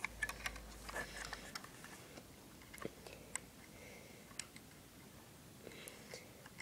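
Lego pieces being handled: faint, scattered clicks and light taps of plastic parts.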